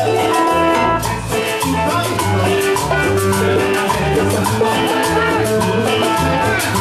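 Peruvian cumbia band playing: electric guitar and hand percussion (congas, bongos, timbales, güiro) over a bass line and a steady dance beat.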